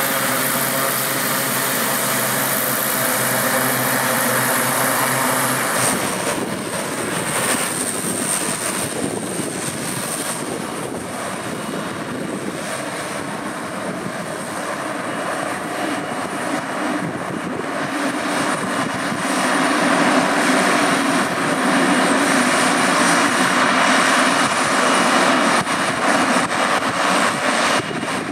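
Allison 250 B17C turboprop engine and propeller of a small aircraft running at taxi power, a steady turbine whine over propeller noise. About six seconds in the sound changes abruptly: the high whine drops away, and the engine grows louder again from about two-thirds of the way through.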